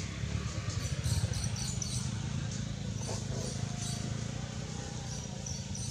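Outdoor forest ambience: a steady low rumble with faint high chirping, and a brief wavering call about three seconds in.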